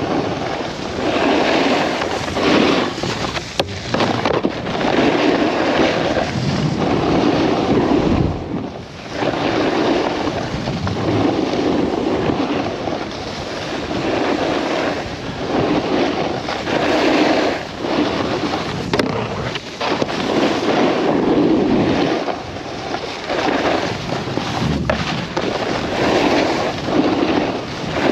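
Wind rushing over a helmet-mounted action camera's microphone while a snowboard's edges scrape across packed snow, swelling and easing every second or two as the rider turns.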